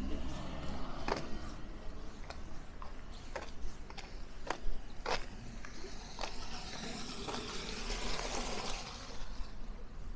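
Footsteps of someone walking on a street, about two steps a second, while a car passes by in the second half, its tyre hiss swelling and fading.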